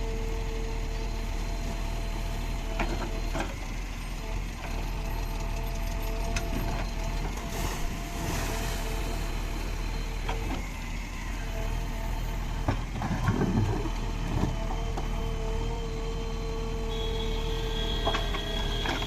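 JCB 3DX Ecoxpert backhoe loader's diesel engine running steadily as it digs, with a steady tone over the engine and a few sharp knocks. A louder stretch of clunks comes about thirteen to fourteen seconds in.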